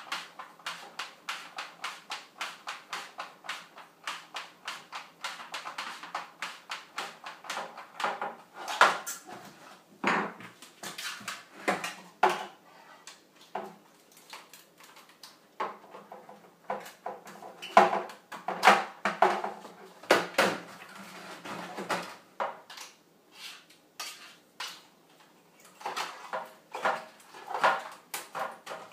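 Hard plastic clicking and knocking as 3D-printed PLA wing segments are handled and worked on a hard worktop: a fairly even run of about three clicks a second at first, then irregular clusters of louder knocks.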